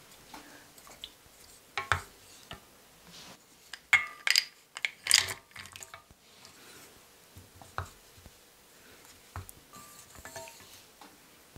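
Wooden spoon stirring in a small stainless steel saucepan of warm cream, with scattered light taps against the pan. A cluster of clinks comes about four to five seconds in as white chocolate pieces are tipped in from a glass bowl.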